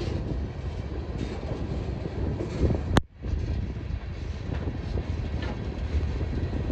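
Freight train of tank cars rolling past close by: a steady rumble of steel wheels on rail. About three seconds in there is one sharp click, and the sound drops out for an instant after it.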